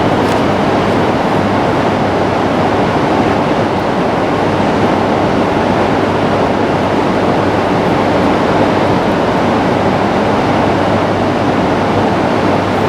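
Shinkansen train noise on an underground station platform: a steady, loud rush of noise with a low hum beneath it and no break or change.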